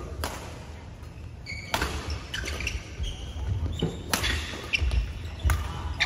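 Badminton rally: rackets striking the shuttlecock in sharp cracks, four or five at irregular intervals, with short squeaks of court shoes on the floor between the hits.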